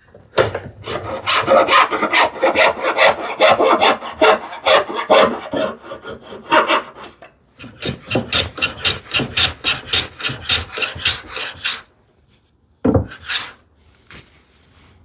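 Rapid rasping strokes of hand tools working a thin plywood strip: a long run of quick strokes, a short break, a second steady run of about five strokes a second, then a single stroke near the end.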